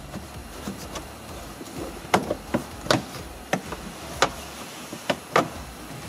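Plastic interior pillar trim panel of a Dodge Journey clicking and snapping as it is worked loose from its retaining clips by hand. From about two seconds in come roughly seven short, sharp clicks at uneven intervals.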